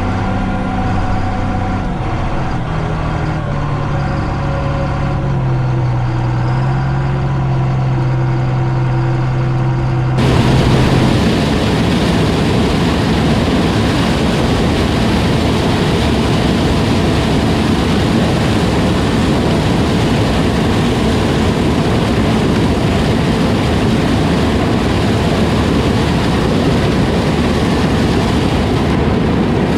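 John Deere 9500 combine's diesel engine running. Its steady tones step up in pitch after a couple of seconds. About ten seconds in, the sound changes abruptly to a louder, even mechanical rumble that lasts to the end.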